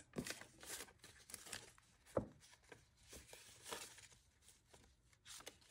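Faint, irregular rustling and flicking of paper banknotes being handled and counted, with soft ticks from the bills and binder pouch.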